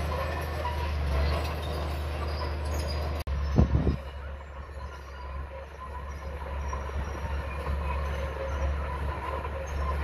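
Komatsu D31P crawler bulldozer's diesel engine running steadily under load, its steel tracks squealing and clanking as it pushes dirt and rock. Just after three seconds the sound cuts out for an instant, then comes a short burst of loud knocks.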